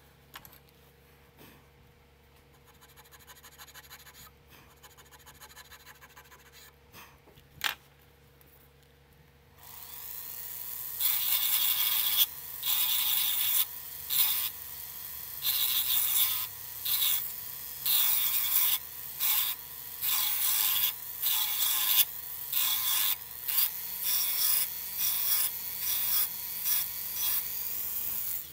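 Hand checkering tool cutting grooves into a 1911 pistol grip panel: a series of rasping scrapes, one per stroke with short pauses between, about one a second from roughly ten seconds in. Before that only faint light scratching and a single click.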